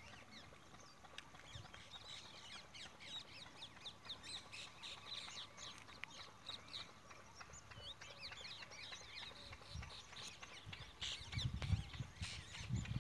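Small birds chirping and twittering, many short quick calls overlapping throughout. In the last few seconds, low rumbles of wind buffet the microphone.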